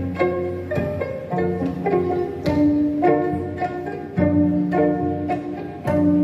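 Gayageum zithers plucked together in a steady melody of quick plucked notes, with janggu hourglass drum strokes marking the beat.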